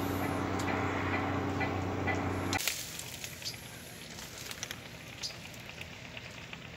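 Steady low drone of a gold-mining dredge's engine. About a third of the way in it gives way to quieter surroundings with scattered small crackles and clicks.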